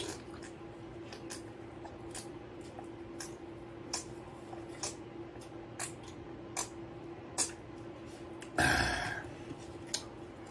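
A person gulping down a drink in small regular swallows, about one a second, then a single loud burp about eight and a half seconds in, over a steady low hum.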